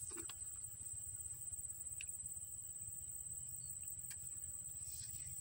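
Insects giving a steady, high-pitched drone over a low outdoor rumble, with a few faint clicks.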